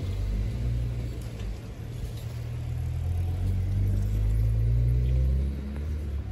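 A motor vehicle's engine running with a low rumble, rising in pitch for a couple of seconds about halfway through and then dropping away shortly before the end.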